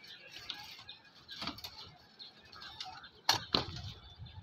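Footsteps across a steel rebar mesh over roof-slab formwork: scattered light clinks and ticks of the bars, with two sharp metal knocks in quick succession about three seconds in.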